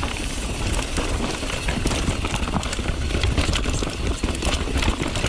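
Mountain bike descending a rough dirt trail: tyres rolling over dirt and rocks with many short clicks and rattles from the bike, over a steady rumble of wind on the rider-mounted microphone.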